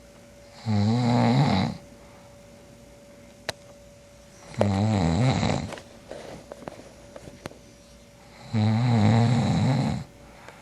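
A man snoring in his sleep: three snores about four seconds apart, each lasting a second or so, with faint crackling breath after the second. The uploader takes the snoring for borderline sleep apnea.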